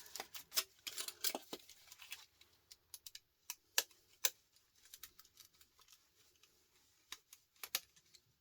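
Irregular small clicks and taps of a screwdriver and small metal and plastic parts being handled while dismantling scrap electronics, with some scraping and rustling in the first couple of seconds.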